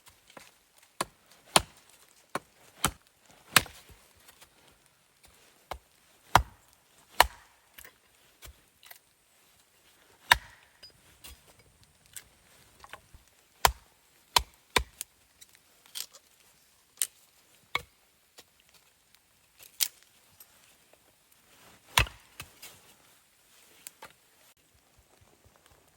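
Wood being chopped: a series of sharp, separate blade strikes on wood at an uneven pace, in runs with short pauses between them.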